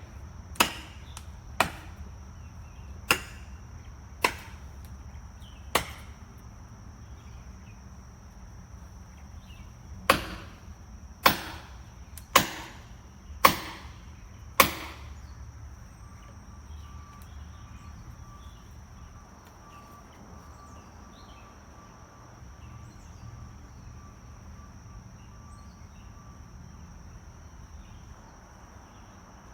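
A series of sharp single knocks or strikes, each dying away quickly: five spread over the first six seconds, then a pause, then five more about a second apart. A thin, steady high whine runs underneath throughout.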